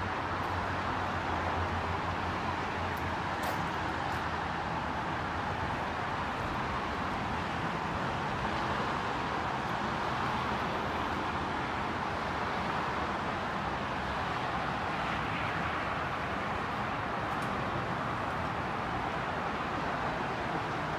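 Steady outdoor background noise, a traffic-like drone, with a low hum in the first few seconds.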